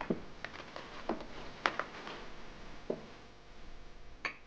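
A scattering of soft clicks and light taps, about nine in all, from small objects being handled, over a low steady room hiss.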